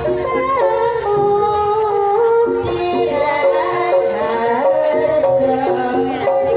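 A woman singing a song into a microphone over music, the other women in the line singing along; a melody of held notes stepping up and down, amplified through a sound system.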